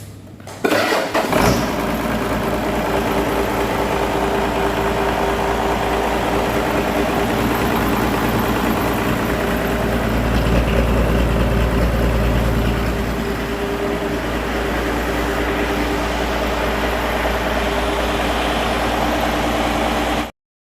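Reconditioned Mitsubishi Fuso 6D16 inline-six diesel engine starting up under a second in and catching, then running steadily on test. It gets a little louder for a few seconds around the middle, and the sound stops abruptly near the end.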